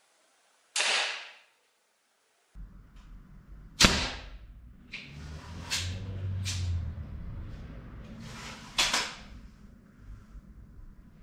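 Mark 3 slingshot rifle shooting at a block of ballistic gel: sharp snaps of the shot and impact. One comes about a second in and the loudest about four seconds in, followed by a few lighter snaps and clicks.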